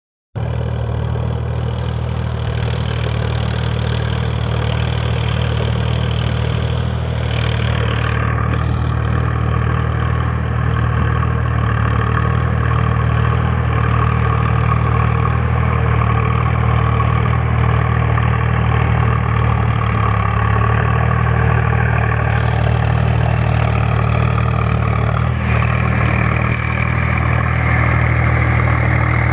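Sonalika DI 745 III Sikander tractor's 50 hp diesel engine running steadily as the tractor works through a flooded, muddy paddy field. It grows slowly louder as it comes closer.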